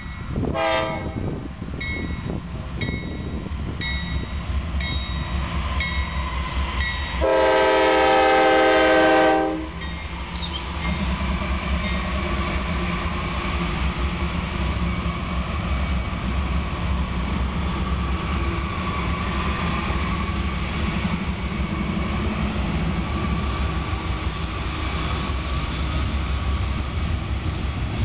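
BNSF GE Dash-9 diesel locomotive approaching with its bell ringing about once a second, a short horn note just after the start, then one long blast of its Canadian K-3 air horn about seven seconds in, the loudest sound. From about ten seconds in the locomotive rumbles past and the freight train runs by steadily.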